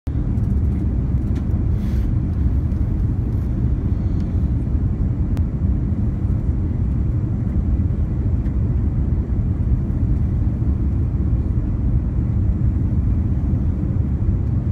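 Steady low cabin rumble inside an Airbus A340-300 on its landing approach, from its CFM56 engines and the air rushing past the fuselage.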